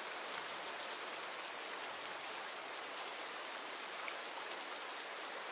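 Steady rain falling in a forest: an even, unbroken hiss of raindrops at a constant level.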